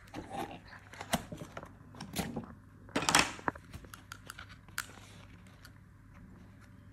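Fingers opening and handling a cardboard gift box of pens: scattered light clicks, taps and rustles of the cardboard lid and plastic tray, with one louder rustle about three seconds in.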